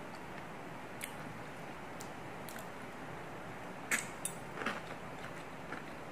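Close-miked eating sounds: a few faint clicks, then a sharp bite into a piece of mushroom about four seconds in, followed by soft wet chewing noises over a steady background hiss.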